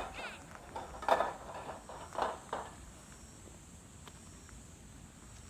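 A few short animal calls with wavering pitch: one at the start, louder ones about a second in and about two seconds in, then only faint steady background.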